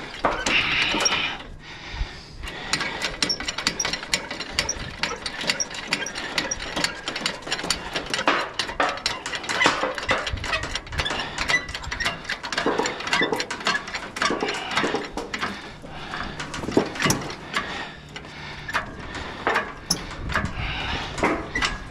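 Shop engine hoist at work with an engine hanging from its chain: a dense, continuous run of rapid metallic clicks and rattles.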